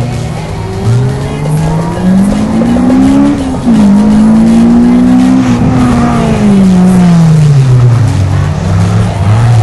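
Rally car engine under hard acceleration. The revs climb, drop sharply at a quick gear change about three and a half seconds in, hold, then fall away as the car slows.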